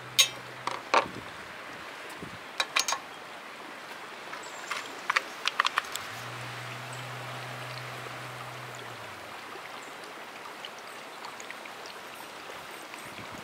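Sharp clicks and knocks as a plastic funnel and a fuel bottle are handled and opened, then denatured alcohol poured through the funnel into a model live-steam locomotive's tender fuel tank, a faint trickle under a steady hiss.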